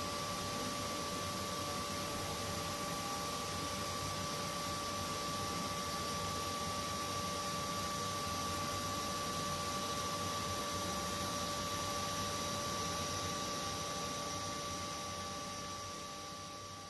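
Steady machine hum and hiss from a powered-up Ibarmia ZVH 42 D1600 machining centre, with a constant two-note whine. It fades out near the end.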